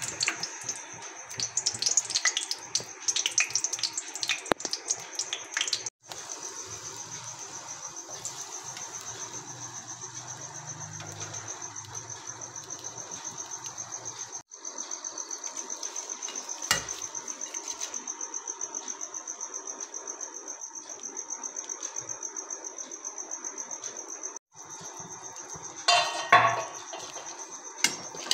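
Whole garlic bulbs frying in hot oil in a wok, sizzling with crackles over the first few seconds. After that a steady high-pitched pulsing trill runs on, with a couple of metal clatters near the end.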